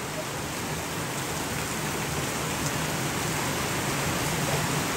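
Steady rain falling, a dense even hiss that slowly grows louder.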